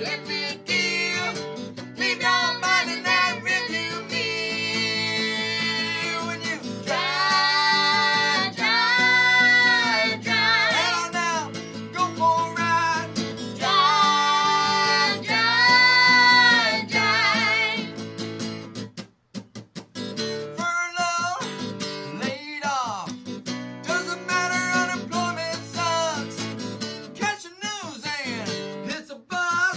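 Acoustic guitar strummed under a girl and a man singing, with long held, wavering notes. The music breaks off for a moment about two-thirds of the way through, then picks up again with sliding vocal notes.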